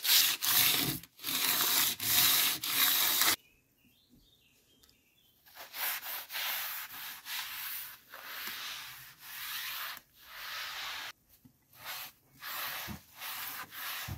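A scouring sponge scrubbing painted window sashes and a sill with soapy water, cleaning them before they are repainted, in repeated back-and-forth strokes. About three seconds in the scrubbing stops suddenly for two seconds, then starts again.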